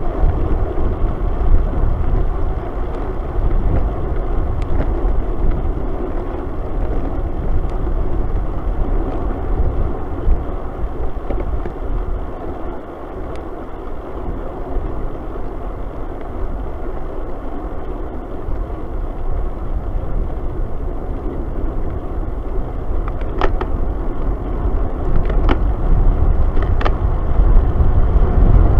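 Wind rushing over the microphone of a bike-mounted camera while riding, with road and tyre noise underneath; a few faint sharp clicks near the end.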